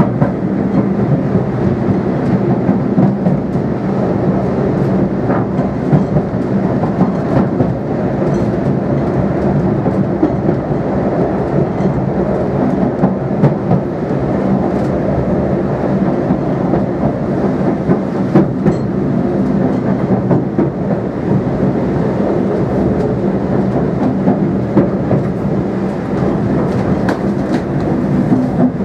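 Steam-hauled train running steadily along the line, heard from close behind the locomotive's tender. There is a constant rumble and low hum, with wheels clicking over rail joints at scattered intervals.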